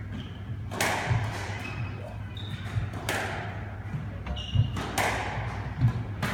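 Squash rally: four sharp cracks of the ball being struck, about two seconds apart, each ringing briefly off the court walls. Between them come low thuds of footsteps and short high squeaks of shoes on the wooden floor.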